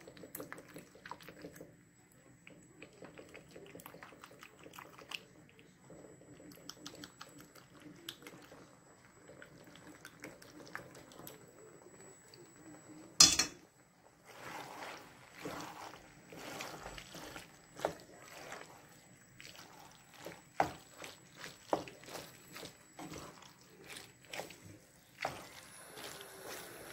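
A fork and then a wooden spoon stirring pasta and raw egg in a frying pan: soft wet stirring with light clicks of the utensil against the pan. A single sharp knock about 13 seconds in is the loudest sound.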